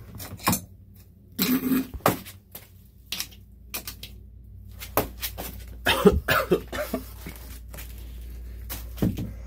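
A man coughing a few times, mixed with scattered short knocks and scrapes from work at an open toilet flange.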